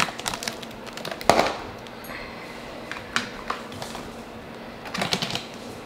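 Scattered clicks, taps and crackles from kitchen items being handled at a counter, the loudest a sharp click about a second and a half in.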